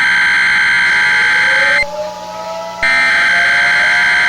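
Emergency Alert System SAME header data burst: a harsh, buzzy digital warble, the opening code that announces a new alert. It sounds for about two seconds, breaks off, and starts again about a second later, with a faint rising tone underneath.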